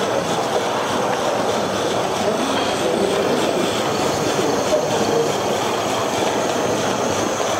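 Steam-turbine-driven Gauge 1 live steam model of an LMS locomotive running along the track: a steady rushing hiss with no exhaust beats.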